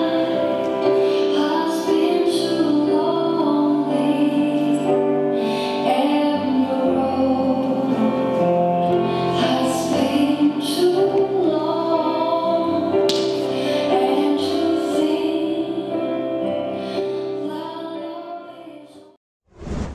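A song with a female singing voice over instrumental accompaniment, fading out near the end.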